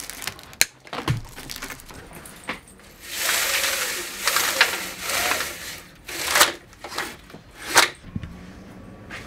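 Flexible foil-lined ducting being handled and fitted: rustling and crinkling, with several sharp knocks and clicks.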